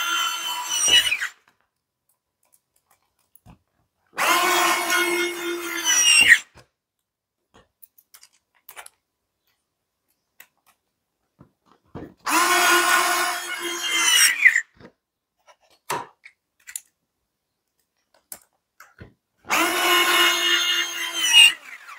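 Cordless inline electric screwdriver driving wood screws: three runs of the motor of about two seconds each, plus the end of one more at the start, each run rising briefly in pitch as it ends. Faint clicks fall between the runs.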